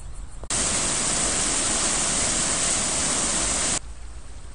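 Loud, steady rushing of water, cutting in abruptly about half a second in and stopping just as sharply near the end.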